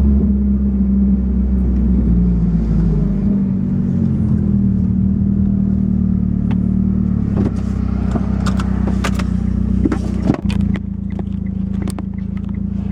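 Car engine and exhaust running steadily under way, heard inside the cabin; the exhaust is broken at the down-pipe flange. In the second half, scattered clicks and knocks come from a loose dashboard camera being handled and re-secured.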